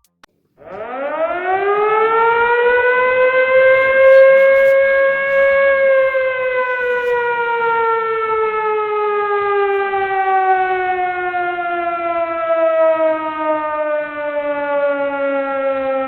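A siren winding up over about five seconds, then slowly winding down in pitch while it keeps sounding loudly.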